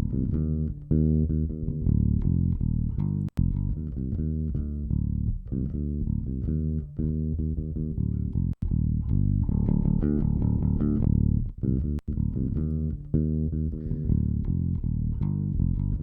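Recorded electric bass guitar line playing back, a steady run of plucked notes with the Vari Tube compressor switched to bypass, so the bass is heard dry and uncompressed. The line breaks off for an instant with a click three times.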